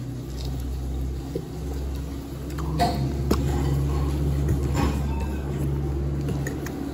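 A spoon clicking a few times against a plate, over a steady low hum.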